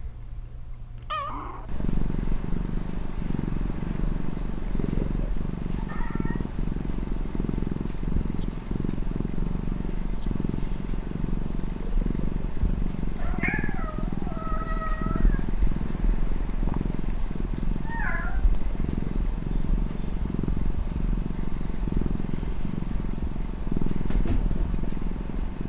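A domestic cat purring steadily, close up, starting about two seconds in, with a few short meows or chirps over the purr: one near six seconds, a couple between thirteen and fifteen seconds, and one near eighteen seconds.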